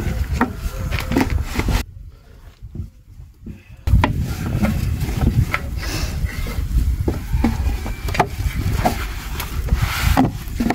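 Long thin wooden rolling pin rolling dough across a wooden board: a continuous rumbling roll broken by light wooden knocks and clicks. It stops abruptly about two seconds in and starts again two seconds later.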